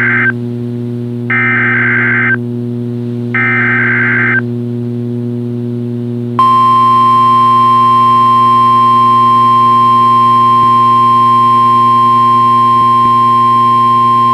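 NOAA Weather Radio weekly-test alert. It opens with the end of one SAME digital header burst, then two more short data bursts, each about a second long and a second apart. After a pause of about two seconds, the steady 1050 Hz warning alarm tone begins about six seconds in and holds. A low steady hum runs underneath.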